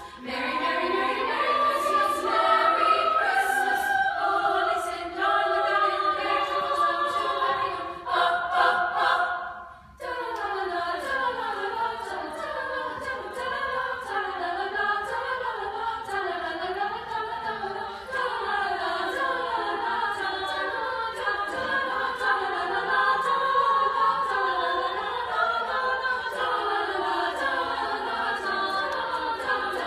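Women's choir singing in several parts, with a short break about ten seconds in before the singing resumes.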